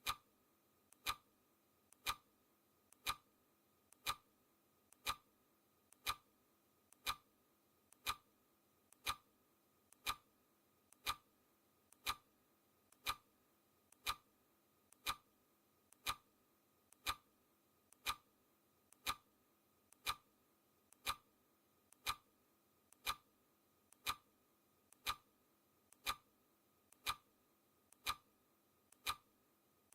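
Clock-ticking sound effect, one sharp tick each second, marking off the seconds of a countdown timer.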